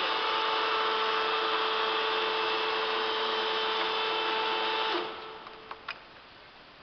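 Hydrogallic copy turning lathe running with a steady whine. It cuts off sharply about five seconds in, followed by a couple of clicks.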